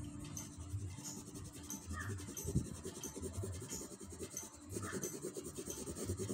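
Colored pencil rubbing and scratching across paper in quick back-and-forth shading strokes, busiest from about two seconds in.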